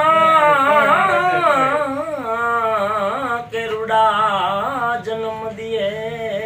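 A man singing a Gujarati bhajan unaccompanied, drawing out long, wavering, ornamented notes on held vowels with short breaks between phrases.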